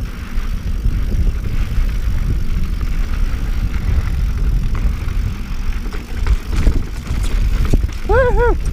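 Mountain bike descending rocky singletrack: a steady low rush of wind on the microphone with the tyres and bike rattling over rock, and scattered clicks and knocks.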